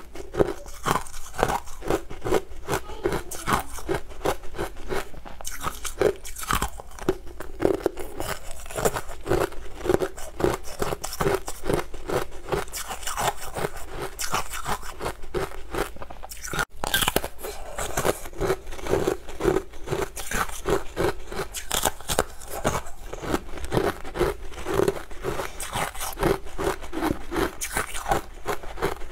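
Close-miked crunching and chewing of hard frozen honey-ice slabs: a dense, rapid series of sharp crunches.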